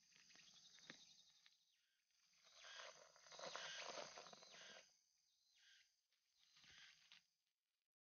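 Faint rustling and crackling of grass and leaves as hands pull and clear vegetation around a ground trap, in irregular swells with a small click about a second in.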